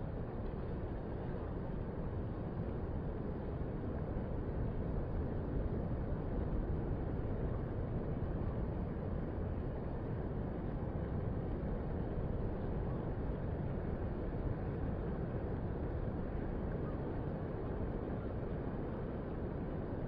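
Gentle ocean surf: small waves breaking and washing along the shore in a steady, even hiss, swelling slightly about six seconds in.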